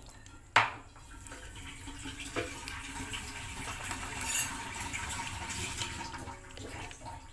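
Plastic spoon stirring a glass bowl of tapioca dessert, sago pearls and gelatin cubes sloshing in milk. There is a sharp knock about half a second in.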